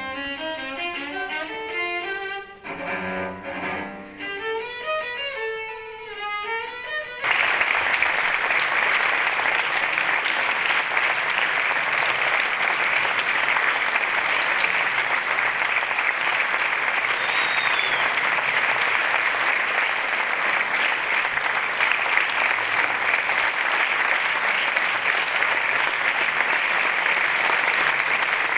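A short phrase of instrumental music with changing notes, then about seven seconds in, an audience breaks into steady applause that carries on.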